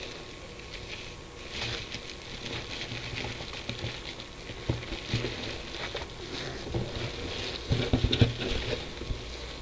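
Handling noise from the model rocket's box being picked up and moved: soft rustling with scattered light taps and knocks, the loudest cluster about eight seconds in.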